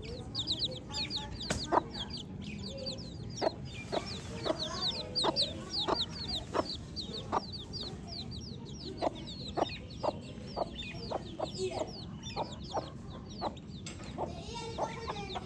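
A group of baby chicks chirping continuously, a dense stream of short, high peeps that each slide downward in pitch. Sharp little clicks or taps come in among them throughout.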